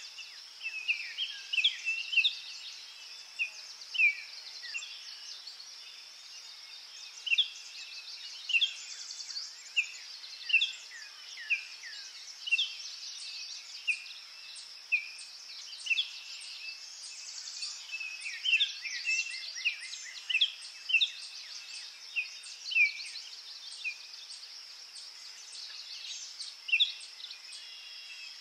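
Nature ambience: many short bird chirps and whistles, coming irregularly, over a steady high-pitched insect drone.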